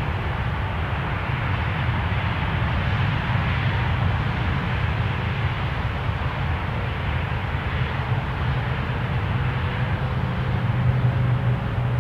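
Steady low rumble of a distant engine, with a faint whine slowly rising in pitch in the second half.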